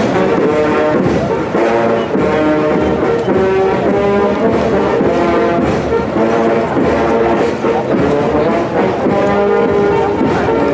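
Brass band playing a tune in full chords, one held note after another.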